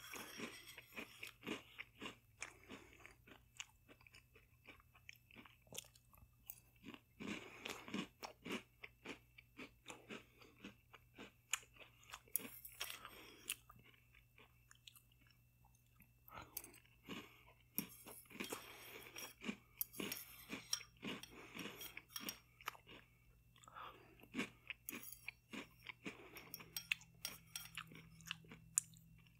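Close-up chewing of crunchy chocolate cereal balls in milk, with irregular crunches, and a metal fork now and then clicking against the bowl.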